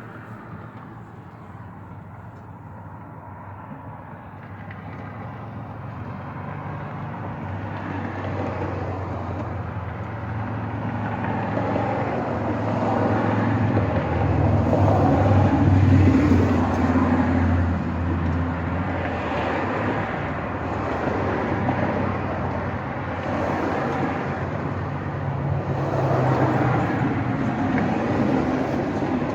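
A motor vehicle's engine running, with a steady low hum that swells slowly louder over the first half and then holds.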